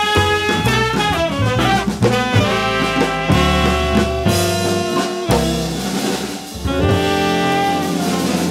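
Live small-group jazz: alto and tenor saxophones and trombone playing lines over upright double bass, guitar and a drum kit played with sticks on snare and cymbals. The horns hold longer notes near the end, after a brief dip in loudness.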